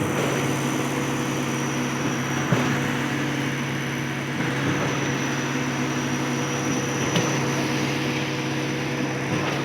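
Concrete pump's diesel engine running steadily at constant speed, with a thin high whine over it and a couple of faint knocks.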